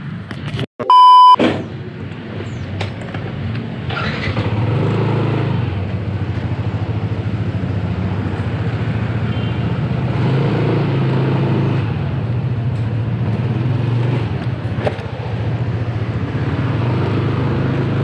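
A short, loud electronic beep about a second in, then a Vespa scooter's engine running steadily with a low, even note and road noise.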